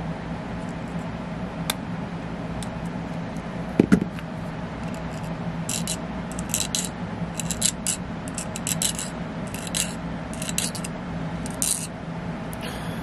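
A run of about ten short scraping strokes, irregularly spaced, from about six seconds in, as a hand tool works a small part. A single sharp knock comes about four seconds in, over a steady low hum.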